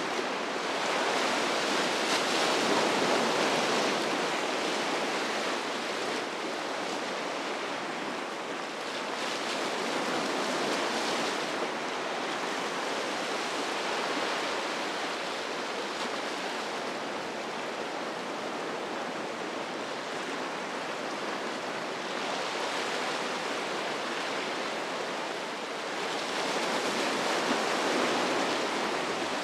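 Breaking waves and rushing surf, a continuous wash of water noise that swells louder a few times, notably about two seconds in and near the end.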